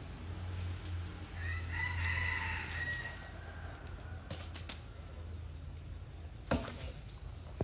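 A rooster crowing once, a single crow of about a second and a half, followed near the end by two sharp knocks.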